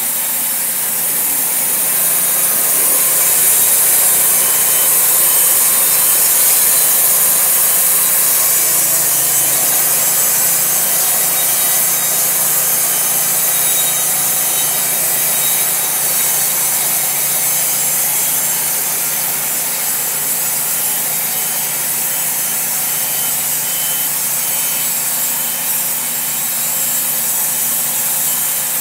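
Wood-Mizer LT40 band sawmill running steadily: its engine hums under the band blade sawing through a reclaimed Douglas fir piling.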